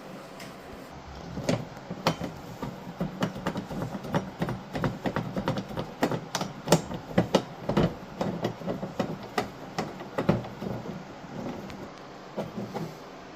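Rapid, irregular clicking and knocking of hard plastic parts being handled: work on an LED TV's casing and stand.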